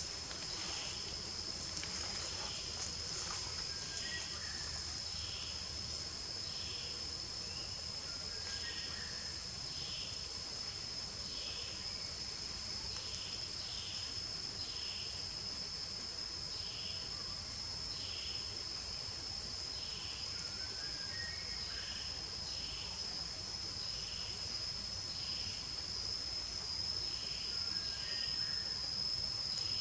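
Forest insect chorus: a steady high-pitched drone throughout, with a softer pulsing call repeating about once a second. A few faint short chirps sound now and then.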